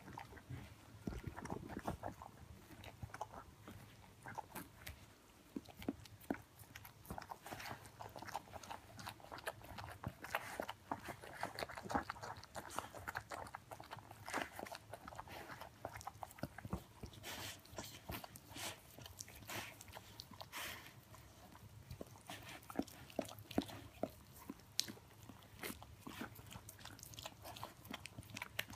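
Siberian husky mother licking her newborn puppy: an irregular run of short wet licking and smacking clicks.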